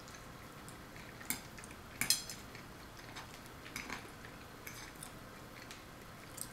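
A metal fork clinking and scraping against a china plate a few times, the loudest clink about two seconds in.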